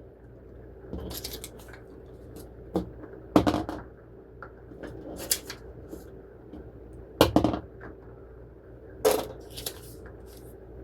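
Dice rolled and clattering onto a tabletop, in about five short rattling bursts, with a few lighter single clicks between them.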